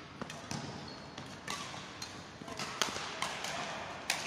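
Badminton rackets hitting a shuttlecock: several sharp smacks at irregular intervals, echoing in a large sports hall.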